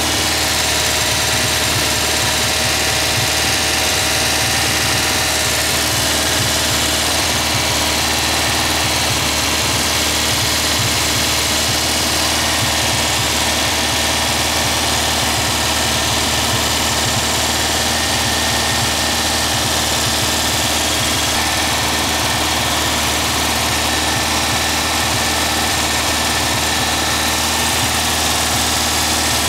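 Air-cooled VW flat-four engine, a 2110 cc build, running steadily at a fast idle for new-camshaft break-in, its cooling fan and open exhaust header going with it. The sound holds even, without changes in speed.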